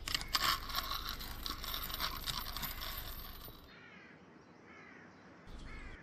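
Metal chains and hooks rattling and clinking as dumbbell weights are hung from eye bolts, for about three and a half seconds. Then a bird calls a few times, short falling calls.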